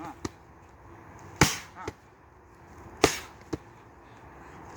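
Punches landing on a padded target in a steady drill. There are three sharp smacks about a second and a half apart, each followed about half a second later by a lighter one.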